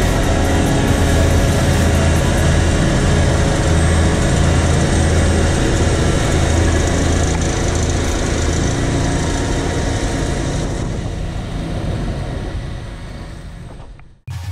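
Caterpillar AP655F tracked asphalt paver working as it lays asphalt: a steady diesel engine drone with a strong low hum, fading out over the last few seconds.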